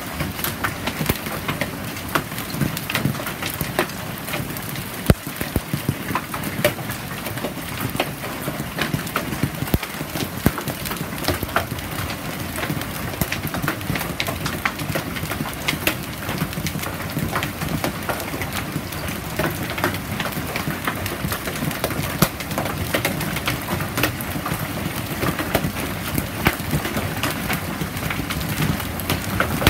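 Hailstorm with rain: a dense, steady patter of many small, sharp hailstone impacts on concrete and grass.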